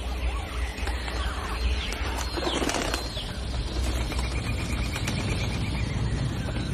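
Jungle ambience: birds chirping and calling over a steady low rumble. There is a brief burst of rustling about two and a half seconds in, and a rapid ticking trill a little after four seconds.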